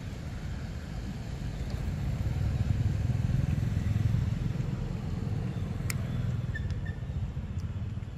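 Low engine rumble of a passing motor vehicle, growing louder to a peak about three to four seconds in and then fading.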